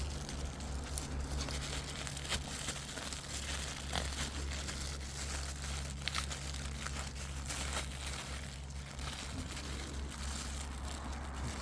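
Rustling and crinkling of guava leaves and branches being handled, with scattered light clicks over a steady low rumble.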